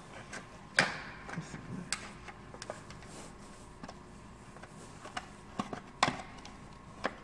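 Irregular sharp plastic clicks and knocks from a car side-mirror housing and its inner mechanism being handled and fitted by hand, the loudest about a second in and again near six and seven seconds.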